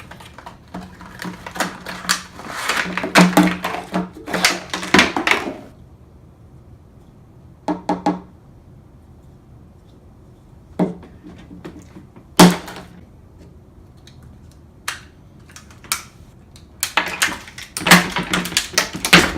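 Hard knocks, cracks and clattering in irregular runs with pauses: a dense flurry in the first few seconds, single strikes in the middle, and another flurry near the end, as a toy dinosaur egg is forced open instead of left to hatch in water.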